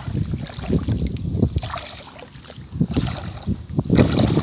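Water splashing and sloshing as a person wades through shallow paddy water, in uneven strokes, with wind rumbling on the microphone.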